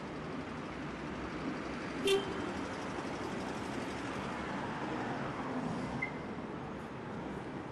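Street traffic noise, with one short car horn toot about two seconds in.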